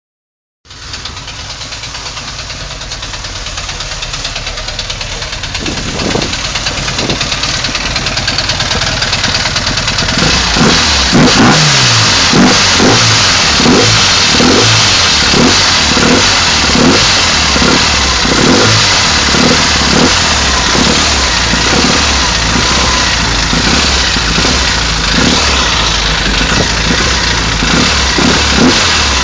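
A car running, with a repeating knock that appears about six seconds in and settles at roughly one and a half knocks a second from about ten seconds on, as the overall sound grows louder. The knock is the unexplained noise the owner is asking about.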